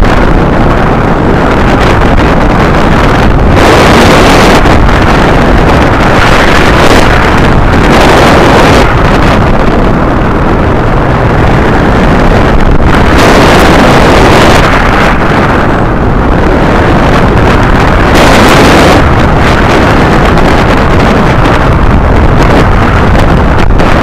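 Heavy wind rushing over the microphone of a camera mounted on a hang glider's upright in flight. It is a loud, steady roar that swells and eases every few seconds as the airflow gusts.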